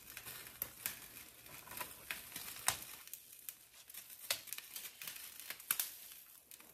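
Fresh sweet potato leaves being handled and rolled up by hand: soft, irregular rustling and crinkling, with scattered light clicks and a few sharper taps.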